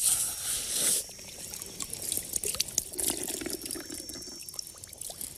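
Hands scooping water out of a hole dug in wet riverbed sand: a splashing rush for about the first second, then water dripping and trickling from cupped hands as it is sipped.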